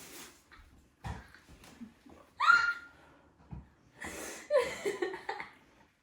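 A person gagging and retching, with short strained voice noises and one loud high cry about two and a half seconds in.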